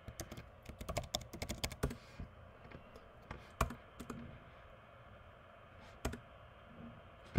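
Typing on a computer keyboard: a quick run of keystrokes in the first two seconds or so, then a few single clicks spaced a second or more apart.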